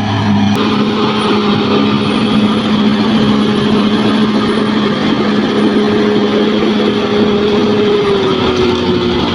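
Bulldozer diesel engine running steadily, with a dense clattering-free drone; its pitch drops slightly near the end.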